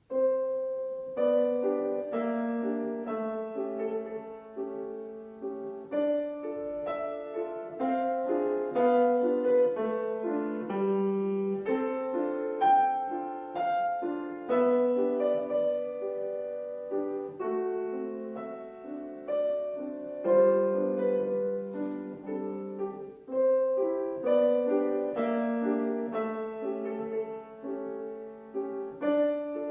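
A piano piece begins straight out of silence and goes on as a flowing run of notes in the middle register, with chords and a melody moving at a moderate pace.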